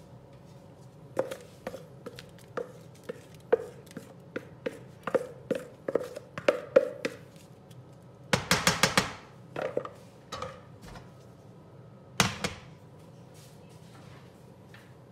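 Wooden spatula tapping and scraping thick cauliflower sauce out of a jug into a non-stick frying pan: a run of sharp taps about two a second, a quick rattling flurry about eight seconds in, and one last loud knock near the end.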